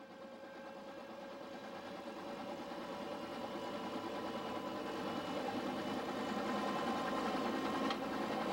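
UH-1H Huey helicopter's Lycoming T53 turbine engine and rotor running, heard from inside the cabin on the ground, a steady mechanical whine growing steadily louder.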